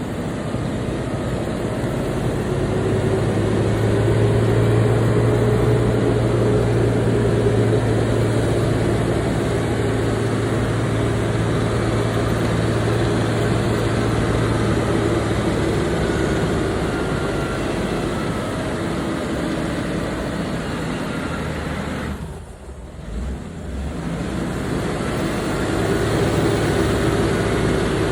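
Logging truck's engine running steadily under load, a deep even hum, with a brief drop in level about three-quarters of the way through.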